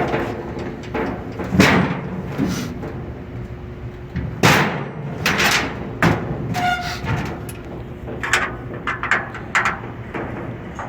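Irregular knocks and clatter of metal parts of the exhaust fan being handled and fitted, with two louder bangs, one about a second and a half in and one near the middle, and a short squeak.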